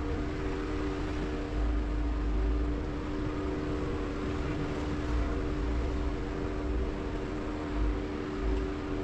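Jeep engine running at a steady, low speed as the Jeep crawls the trail, a steady hum under the noise. Deep low rumbles swell and fade a few times, about a second and a half in, around five seconds and near eight seconds.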